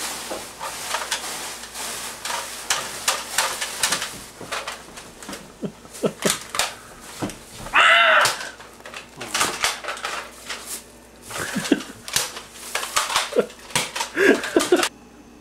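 Repeated sharp clicks and knocks of handling. About halfway through, one short, loud yell rises and falls in pitch, and near the end everything drops to a quiet, steady room hum.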